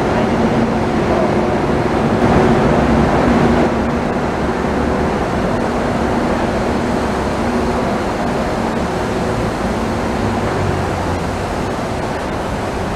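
Kuala Lumpur Monorail train running along its concrete guideway beam on rubber tyres: a steady rumble with a humming tone, easing slightly toward the end.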